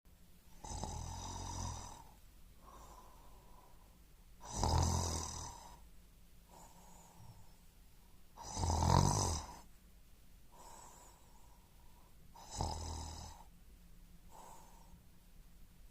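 Snoring: four loud snores about four seconds apart, each followed by a softer breath.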